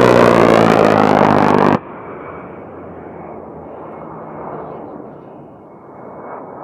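GAU-8 Avenger 30mm rotary cannon on an A-10 Thunderbolt II firing a long burst: a loud, steady buzzing 'brrrt' that cuts off sharply about two seconds in. Then the A-10's twin TF34 turbofan engines are heard running with a steady thin whine as the jet pulls away.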